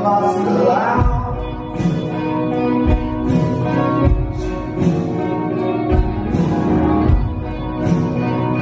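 Live band music: a sung line at the start over sustained keyboard chords, then a drum beat comes in about a second in, about one low beat a second.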